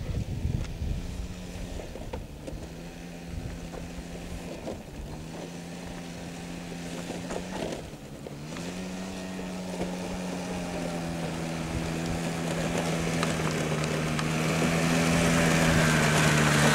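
Small 49cc children's quad bike engine running at a steady pitch, dipping briefly about eight seconds in and then picking up again, and growing louder as the quad comes closer.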